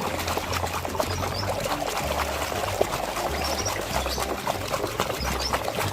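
Water pouring and splashing steadily over a toy as it is rinsed of mud.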